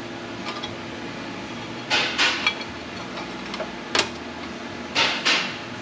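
Metal tools and parts clanking as they are handled and set down on a workbench: a couple of clanks about two seconds in, one sharp one about four seconds in, and two more near the end, over a steady low hum.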